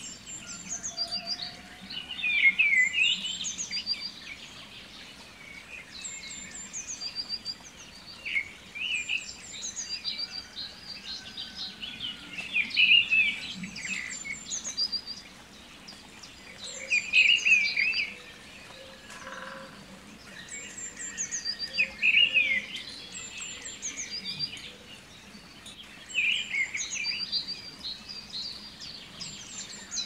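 Birdsong: several birds chirping and trilling in high notes, with a louder burst of chirping about every five seconds.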